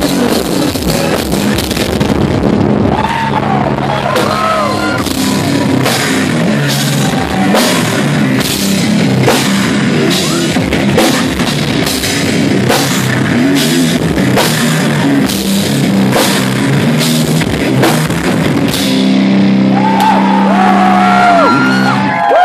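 Live rock band playing loud: a drum kit keeping a steady beat of about two hits a second under electric guitar and sustained low bass notes.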